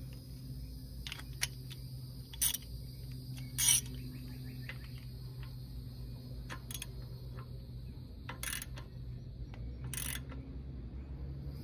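Hand ratchet and socket clicking and clinking in short irregular bursts as a new lower steering-knuckle stud on a Toyota Land Cruiser 80 Series axle is run in and snugged down.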